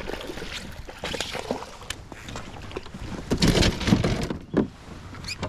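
Knocks, clicks and rustling noise of handling on a fishing kayak, with the loudest burst of noise about three and a half seconds in.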